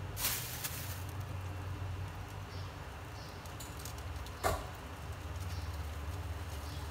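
Steady low hum of an electric glass-top hob heating a pan of oil, with no sizzle yet. A short burst of noise comes just after the start, and a single sharp knock about four and a half seconds in.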